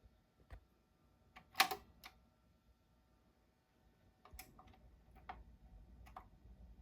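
Mechanical clicks and clacks from a Dual 1019 record-changer turntable, with one louder clack about a second and a half in. A low motor hum sets in about four seconds in, followed by a few more clicks.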